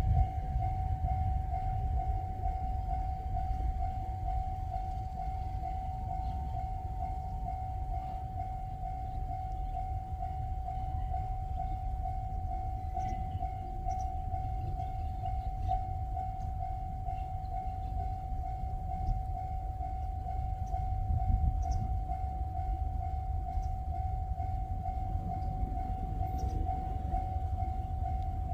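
Japanese level-crossing warning bell ringing in an even, repeating ding over a low rumble, signalling that a train is approaching. A second, higher bell tone drops out about eight seconds in.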